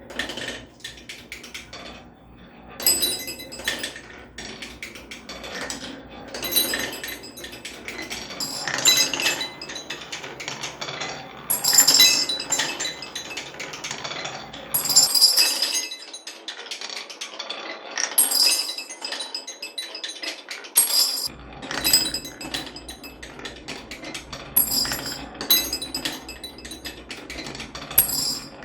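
Marbles rolling and clattering down a HABA marble run track, a steady patter of small clicks with brighter glassy clinks every two to three seconds as marbles drop into a glass bottle.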